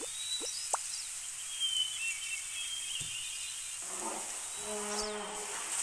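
Nature ambience of insects droning steadily, with birds chirping. Near the end a low, drawn-out animal call lasts about two seconds.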